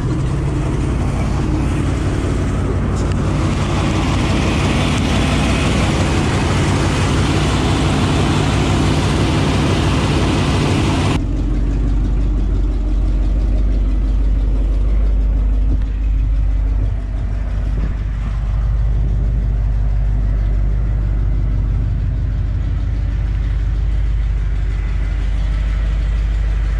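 A truck engine runs steadily and loudly, with a deep low drone under a rushing hiss. About eleven seconds in, the sound changes suddenly to a duller, deeper engine rumble with little hiss.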